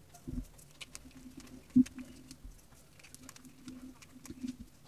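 Chunks of reformed gym chalk crumbling as they are squeezed in the hand: scattered small crackles, with a louder crunch just after the start and another about two seconds in.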